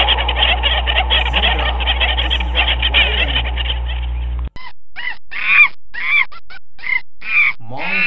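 A dense chorus of overlapping animal calls over a steady low hum, cut off sharply about halfway through. It gives way to a string of separate short calls, each rising then falling in pitch, about two a second.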